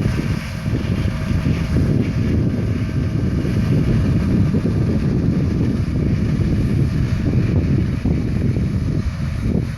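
Combine harvester running steadily in a soybean field, a loud even engine drone, with wind buffeting the microphone.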